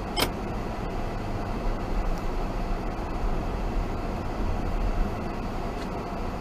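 A car driving slowly, heard from inside the cabin: a steady low rumble of engine and tyres on the wet pavement, with one sharp click just after the start.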